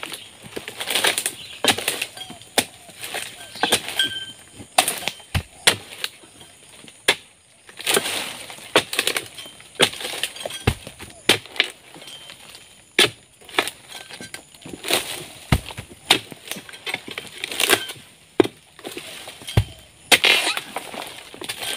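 Steel harvesting chisel on a long pole jabbed again and again into the stalks of oil palm fronds: irregular sharp chopping knocks, mixed with the rustle of the stiff palm fronds as they are cut loose.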